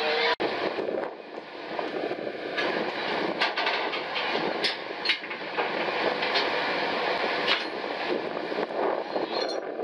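Steady mechanical din on a stern trawler's working deck: machinery running with a continuous rattling clatter, and sharp metallic clanks now and then. It cuts out for an instant less than half a second in.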